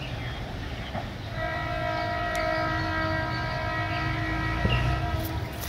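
Approaching local train's horn sounding one long, steady blast, starting about a second in and lasting about four seconds, over a low rumble.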